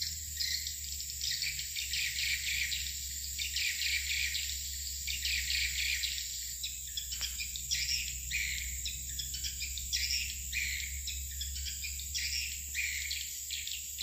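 Edible-nest swiftlet calls: a dense, continuous run of short, rapid chirps, over a steady high hiss and a low rumble.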